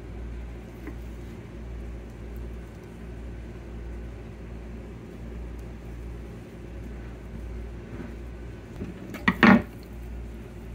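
A knife is set down on a plastic cutting board with a short clatter about nine seconds in, over a steady low hum and faint handling of fish on the board.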